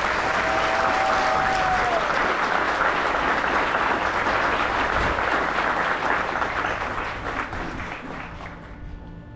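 Crowd of spectators applauding, dying away over the last second or two.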